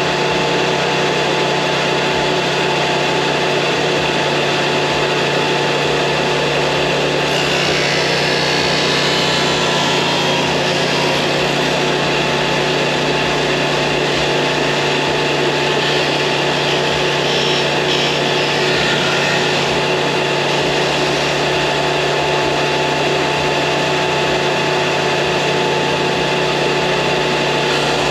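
Electric disc sander running steadily, with the sound of wood being ground against the disc coming and going as parts are pressed in to shape their roundovers.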